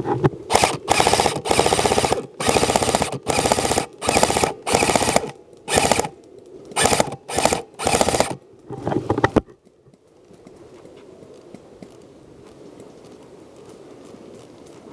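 About a dozen bursts of rapid automatic fire, each half a second to a second long, fired in quick succession. The fire stops abruptly about nine and a half seconds in, leaving a low steady outdoor background.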